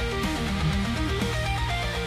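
Background music: guitar-led track with strummed and picked electric guitar over a steady bass.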